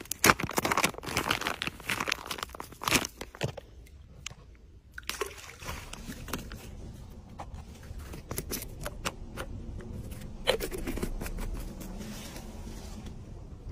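Clear plastic bait packet crinkling as it is handled, a dense crackling for about the first three and a half seconds, then quieter scattered rustles and ticks.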